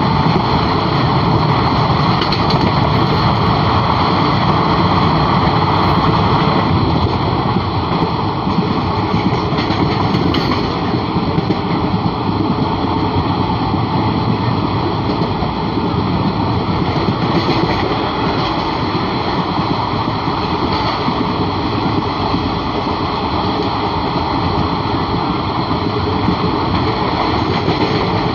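Running noise of an express passenger train at speed, heard from its open door or window: a steady rush of wind and wheels on rail. It is a little fuller for the first six seconds or so, then holds level.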